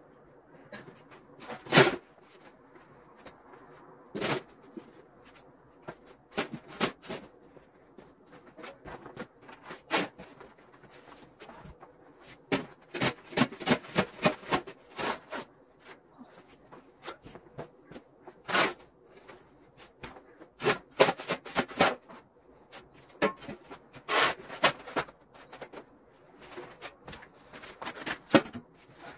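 Metal snow shovel scraping and chopping at packed snow and ice in quick, irregular strokes, with sharp knocks as the blade strikes the hard surface.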